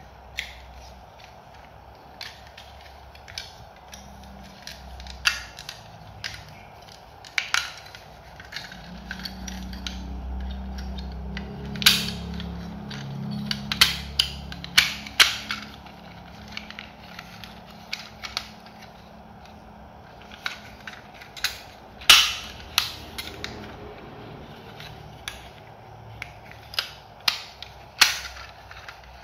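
Plastic transforming helicopter robot toy being handled, its parts clicking and snapping as they are folded and locked into place. The clicks come at irregular intervals, the sharpest a little before the middle and near the end.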